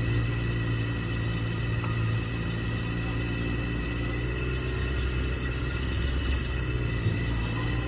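Sport motorcycle engine running steadily at low revs in second gear while rolling slowly, heard from the bike itself.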